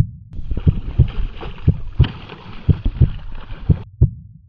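Heartbeat sound effect: regular double thumps, lub-dub, about once a second, over a steady rushing noise that sets in about a third of a second in and stops shortly before the end.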